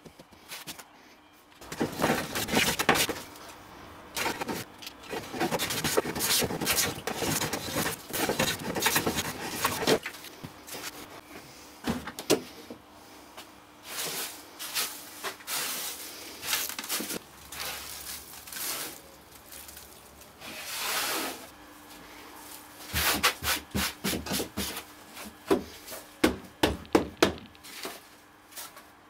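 Wood shavings being swept by hand across a chipboard bench top: a dry, rough brushing. It runs for several seconds, comes and goes, then ends in a run of short quick strokes.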